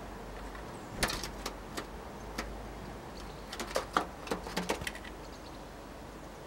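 Tits at a wooden bird feeder making sharp, irregular taps and clicks on the wood: a few single taps about a second in, then a quick cluster around four seconds in. A steady low background hum runs under them.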